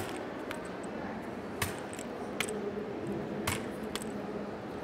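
Light hammer taps on a steel hole punch, driving it through a stencil into birch bark. There are five sharp taps at uneven intervals.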